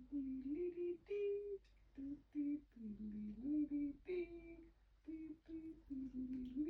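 A woman humming a tune in short, held notes that step up and down.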